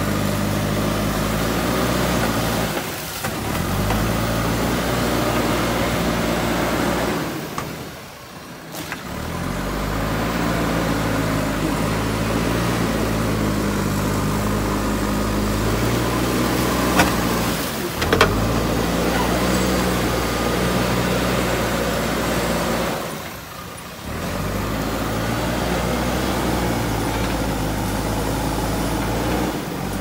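JCB 3DX backhoe loader's diesel engine running under load as the front bucket pushes mud, its pitch stepping up and down with the throttle. Two sharp knocks about a second apart just past the middle.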